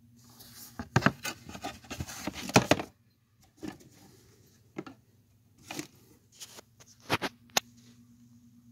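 Handling noises: a burst of rustling with sharp clicks and knocks for about three seconds, then a few scattered clicks and taps as objects are moved about.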